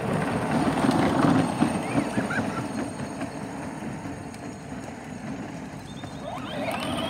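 Peg Perego John Deere Gator ride-on toy, running on 24 volts, driving away. Its plastic wheels rumble over brick pavers and concrete and its electric drive motors whir, loudest about a second in and then fading as it moves off. Near the end a whine rises quickly in pitch and then holds, as the motors spin up.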